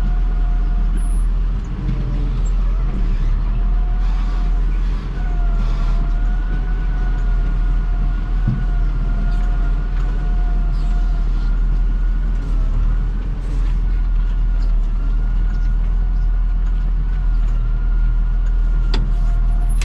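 Tractor engine running steadily under load as it manoeuvres a feeder wagon, with a continuous high whine over the engine note that wavers slightly in pitch. A single knock sounds about halfway through.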